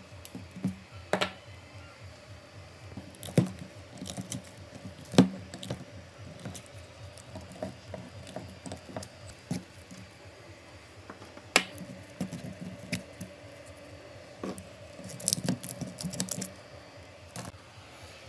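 Irregular sharp knocks and metallic clicks of hand tools on a burnt-out aerator motor's steel stator as its copper windings are pulled and driven out of the slots for rewinding. The knocks come in a quick cluster near the end.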